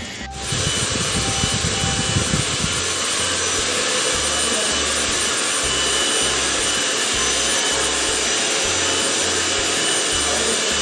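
Hand-held hair dryer blowing steadily, switched on about half a second in, with a faint motor whine in the rush of air.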